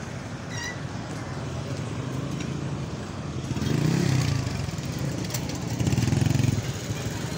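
Motorcycle engines running in street traffic, over a steady traffic hum. An engine swells louder twice, about four and six seconds in.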